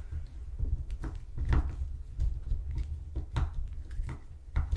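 Scattered light clicks and scrapes of a small screwdriver working at the screws on the plastic motor end of a cordless drill, over a low rumble of parts being handled.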